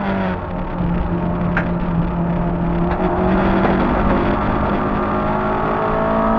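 Peugeot 106 1.3 rally car's four-cylinder petrol engine heard from inside the cabin, running hard at high revs. The revs dip briefly just after the start, then climb again after about three seconds, with one sharp click about a second and a half in.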